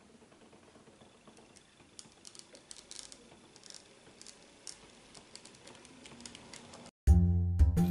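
N-scale model electric train (Arnold Renfe series 440 unit) running on its track, with faint irregular clicking of the wheels over the rail joints that grows louder and busier as it comes closer. About seven seconds in, loud music starts abruptly.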